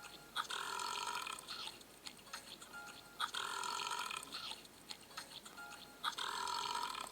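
Cartoon burp sound effect from a looped eating-and-burping clip, repeating three times, each burp lasting about a second and coming roughly every three seconds, with small clicks and short tones between them.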